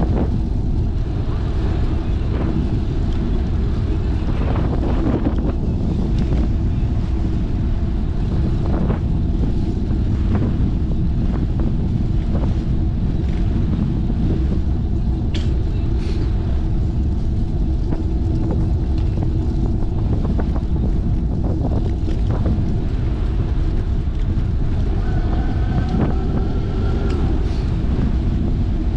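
Wind buffeting the microphone and tyre rumble from a fixed-gear bicycle rolling over cracked asphalt, with scattered light knocks and rattles from bumps in the road.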